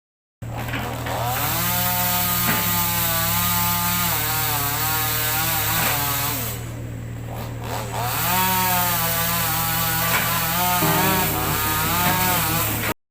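Chainsaw running at high revs and cutting into mango tree wood, its pitch wavering as the chain takes the load. About six seconds in it eases off and drops quieter for a second and a half, then picks back up before cutting off suddenly near the end.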